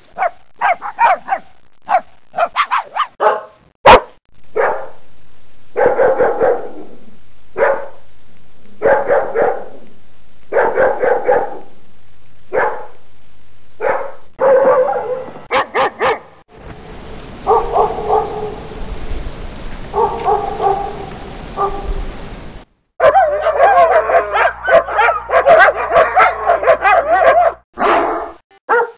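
Dogs barking in a run of separate recordings: quick short barks at first, then single barks about every second and a half, then barks over a steady hiss, and near the end a fast unbroken flurry of barking. There is one sharp click about four seconds in.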